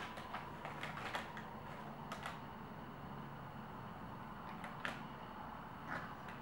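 Crumpled brown kraft paper crackling and rustling under a cat's paws as it steps across the sheets, in separate crackles a second or more apart, the sharpest right at the start.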